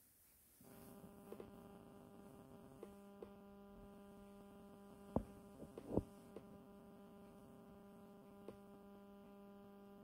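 A faint, steady electrical hum, with a lower tone joining it about three seconds in, and a few light clicks near the middle.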